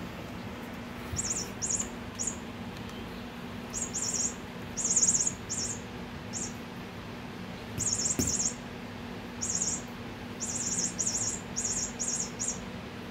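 Short, high-pitched chirps like a small bird's, coming in quick bunches of two or three, about twenty over some eleven seconds, over a steady low hum.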